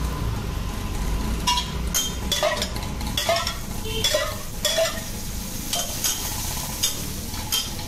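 Parottas frying on a flat iron griddle, oil sizzling steadily. A steel cup and flat metal spatula knock and scrape on the griddle plate about ten times, irregularly.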